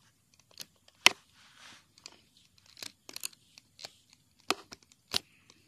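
Rubber loom bands being pulled off the clear plastic pegs of a Rainbow Loom: scattered sharp clicks and snaps, the loudest about a second in, with soft rustling between.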